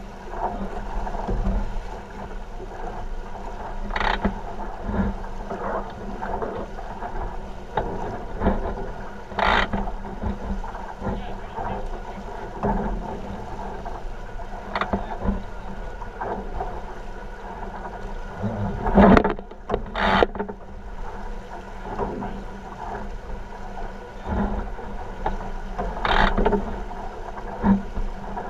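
Wind and rushing water on a 49er skiff sailing fast through chop, with a low steady hum underneath. The hull now and then slaps into waves with sharp knocks; the loudest are two close together about two-thirds of the way through.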